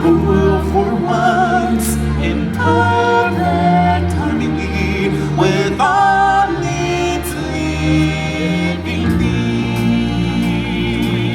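Music with a choir singing long, wavering notes over a steady accompaniment.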